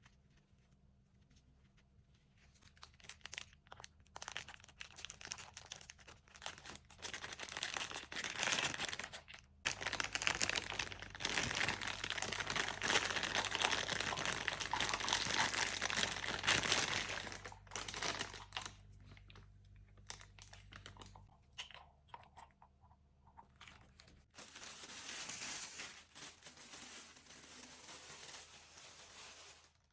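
Packaging being handled and unpacked: irregular crinkling and rustling with tearing sounds, loudest in the middle, dying down and then returning briefly near the end.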